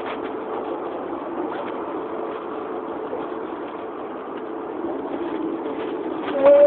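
Steady street noise with traffic, muffled and even, and a short loud pitched tone just before the end.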